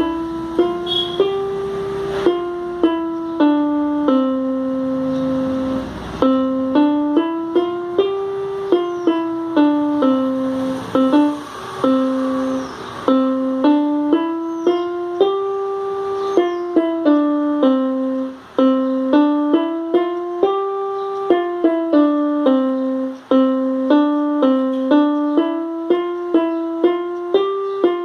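Portable electronic keyboard playing a simple melody one note at a time in a piano voice. Each note starts sharply and then fades, with two brief breaks in the run.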